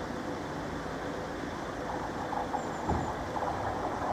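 Approaching South Western Railway Class 444 electric train, heard at a distance as a steady rail rumble. From about two seconds in there are faint wheel clicks, and a single thud comes about three seconds in.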